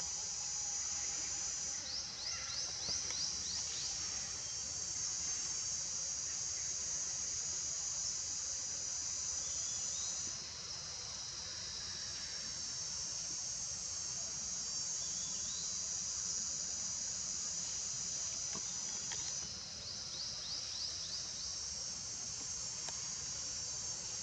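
Forest insects droning steadily in a high, even band, easing off briefly about ten seconds in and again near twenty seconds before resuming. Short runs of quick rising chirps come about two seconds in and again near the end.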